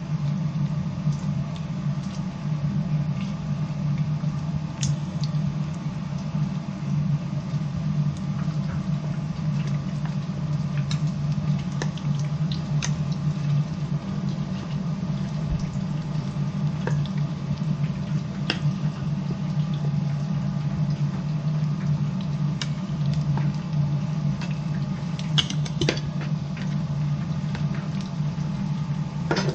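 Battered chicken pieces deep-frying in a stainless-steel electric fryer: hot oil bubbling and sizzling steadily over a steady low hum, with scattered light clicks of metal tongs.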